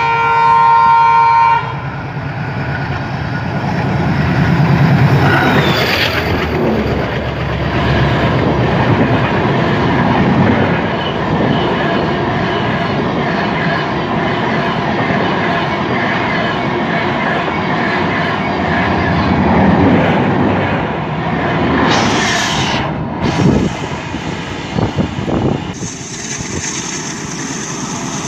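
An Alco diesel locomotive's horn sounds once for about a second and a half. Then the train passes close at speed: a loud rumble of the locomotive and LHB coaches with the rhythmic clickety-clack of wheels over rail joints. Near the end it gives way to a quieter, steady hiss.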